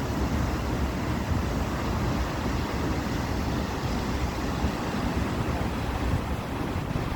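Waterfall rushing: a steady, even roar of falling water with a heavy low rumble.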